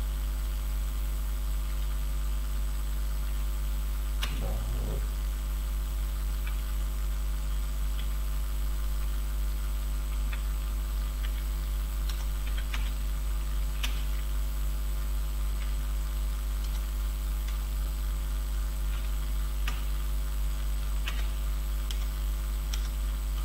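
Steady low electrical mains hum from the recording setup, with sparse faint clicks of computer keyboard keys as Urdu text is typed slowly.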